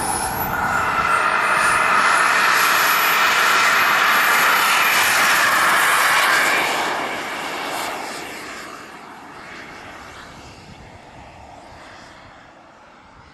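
Turbine engine of a Skymaster F-18C radio-controlled model jet at full power on its takeoff run: a loud jet roar with a high whine climbing in pitch over the first couple of seconds. It fades steadily from about seven seconds in as the jet climbs away.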